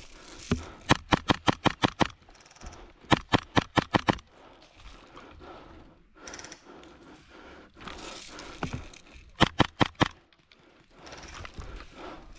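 Airsoft gun firing rapid bursts of shots: a long burst about a second in, another about three seconds in, and a shorter one near the end.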